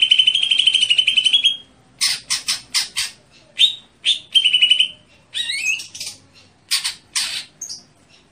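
Cucak hijau (greater green leafbird) calling: a fast rattling trill for about the first second and a half, then a string of short, harsh squawks, one of them rising in pitch about two thirds of the way through.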